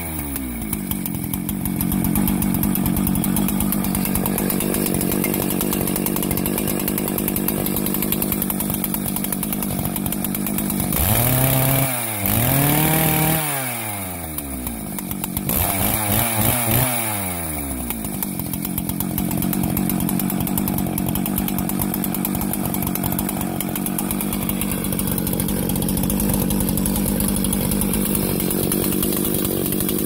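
ICS 633GC gas concrete chainsaw's two-stroke engine running without cutting. It settles to idle at the start, is revved up and let back down about three times in the middle, then idles again.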